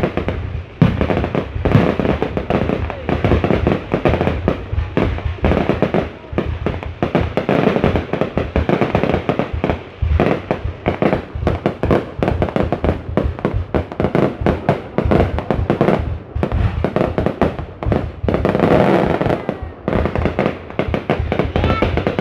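Fireworks display: a rapid, continuous barrage of shells bursting and crackling, many bangs a second with no pause.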